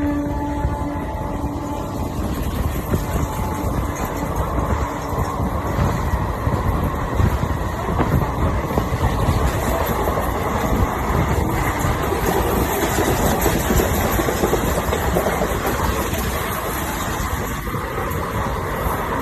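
Indian Railways train running at speed, a steady rumble and rattle of wheels on track. A train horn trails off in the first couple of seconds.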